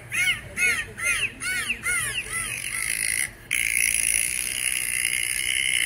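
A bird calling in a quick series of short, clear, arched notes, about three a second, which fade out after about two seconds; from about three and a half seconds in, a steady high-pitched tone takes over.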